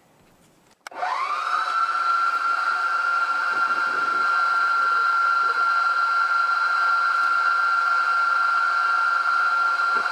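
Milling machine spindle switched on about a second in: its motor whines up to speed within a second and then runs steadily with a high, constant whine.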